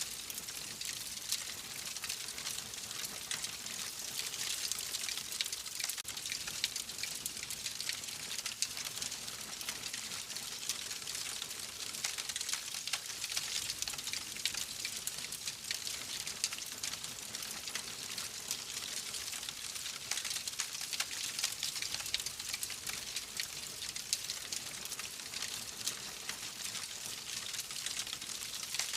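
Wood fire burning in a fireplace: a steady hiss with many small, quick crackles and pops.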